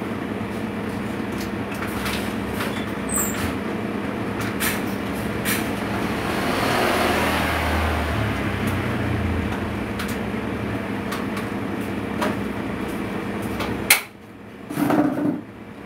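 A machine running with a steady hum and rush, with scattered light clicks and knocks. It cuts off suddenly with a sharp click near the end, and a short dull knock follows.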